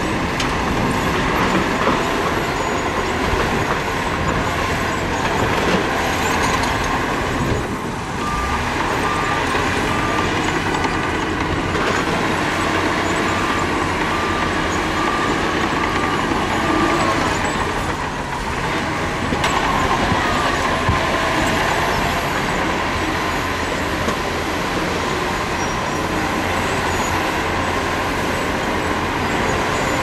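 Heavy diesel earthmoving machinery, a crawler bulldozer and dump trucks, running steadily at work. A repeated high beep sounds for several seconds in the middle.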